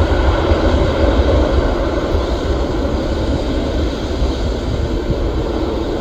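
Departing jet aircraft's engines rumbling steadily at takeoff power, slowly fading as it climbs away.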